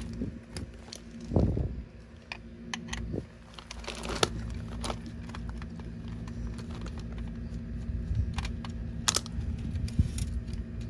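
Irregular plastic and metal clicks and rattles from a VCR deck and its plastic board frame being handled and pried at to free the motherboard, a few sharper clacks among them, over a steady low hum.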